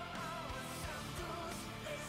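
Background pop song with a sung melody over a steady drum beat.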